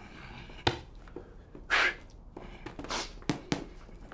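Blows landing on a person in padded protective gear: three sharp hits, one under a second in and two close together near the end, with loud breathy gasps between them.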